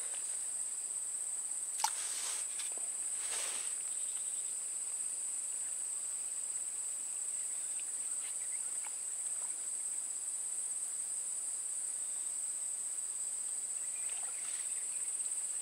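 Steady high-pitched buzzing chorus of insects, with one sharp click about two seconds in.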